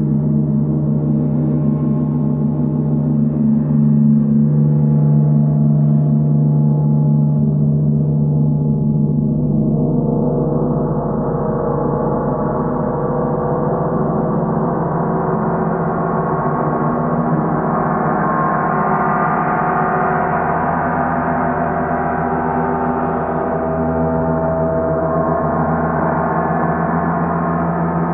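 Three large hanging gongs played together in a continuous, sustained wash: a low steady hum, joined about ten seconds in by brighter overtones that swell and keep building.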